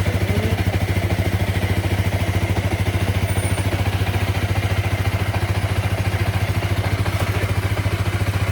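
Honda Rebel 300's single-cylinder engine idling steadily with an even, fast pulse, freshly filled with new oil.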